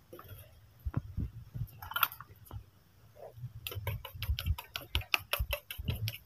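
A spoon working yogurt in a small steel bowl: scattered knocks of dishes being handled, then, a little past halfway, rapid even metallic clicking of about six a second as the spoon strikes the bowl.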